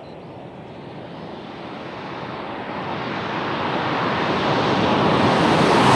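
Skoda Kodiaq Scout approaching at speed on a concrete runway: tyre and engine noise rising steadily as the car closes in, then cut off abruptly near the end.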